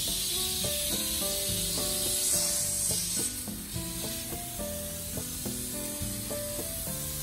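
Refrigerant gas hissing out of an air conditioner through the gauge manifold hoses as the old compressor is vented. The hiss stops about three seconds in, and background music with a light melodic tune plays throughout.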